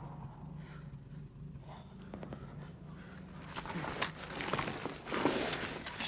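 A faint low hum, then soldiers' gear rustling and scuffing with scattered light knocks, and a louder rush of noise about five seconds in.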